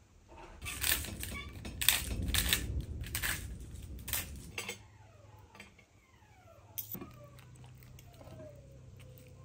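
Hand-held spice grinder twisted over a tray of roast chicken, a dense gritty grinding rattle for about four seconds. Then a few sharp clinks of a fork and spoon against the metal roasting tray as the chicken is pulled apart.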